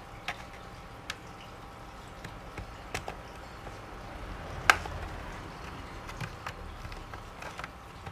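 Scattered small clicks and taps of plastic laptop parts being handled during disassembly, with one sharper click about halfway through.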